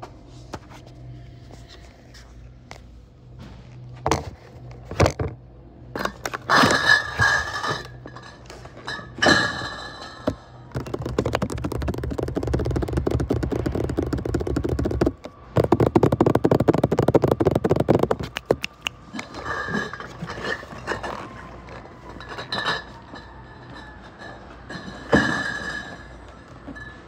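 Cardboard cases of beer being handled and stacked on a pallet: several thunks as cases are set down, some with a glassy clink from inside, and a long stretch of cardboard scraping over cardboard in the middle, broken once by a short pause, as a case is slid into place.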